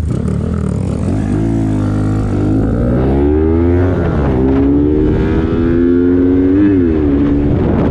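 Suzuki Smash 115 single-cylinder four-stroke motorcycle engine accelerating at full throttle from a drag-race launch about a second in. It revs to near 11,000 rpm, the note rising and then dropping sharply at each upshift, three times.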